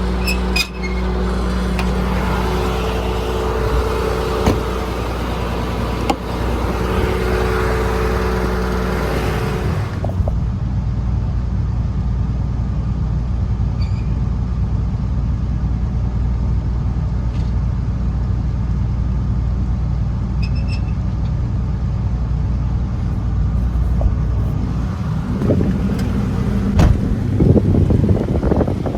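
The 2005 Ford F750's 5.9 Cummins inline-six diesel running steadily. The sound thins out about a third of the way in and grows louder and rougher near the end.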